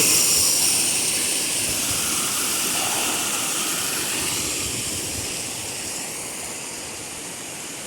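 Rushing floodwater from a rain-swollen lagoon: a steady rush that fades gradually over several seconds.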